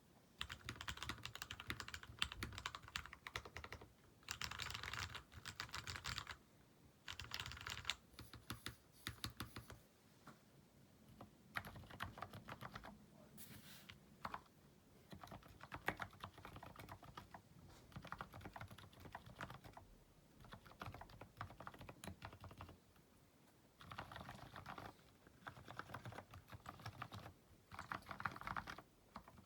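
Typing on a mechanical keyboard modded with case and plate foam, lubed switches and tuned stabilizers: fast runs of key strokes in bursts, with short pauses between them.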